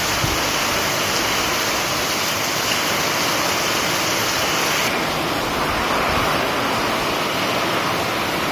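Heavy rain pouring down, a dense steady hiss of water. About five seconds in the hiss turns duller, its higher part dropping away.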